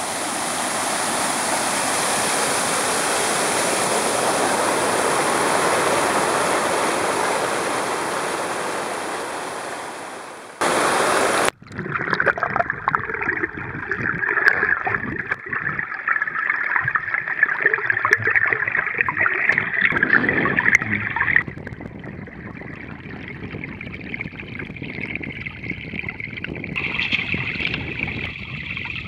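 Rushing water, heard through a camera held underwater: first an even, loud hiss, then after a sudden break about eleven seconds in, a hiss with many small ticks as a chatterbait lure is pulled past the lens.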